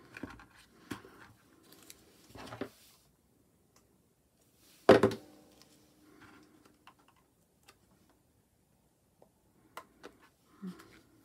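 Craft items handled on a tabletop: rustling and small clicks, with one loud knock about five seconds in as something hard is set down, ringing briefly.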